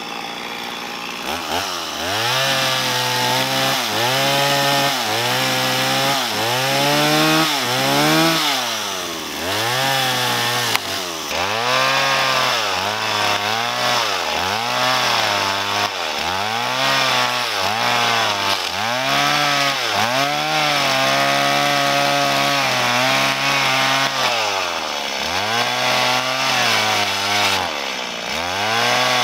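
Stihl chainsaw cutting through a fallen log. Its two-stroke engine note rises and falls about once a second as the bar works through the wood, starting about a second in.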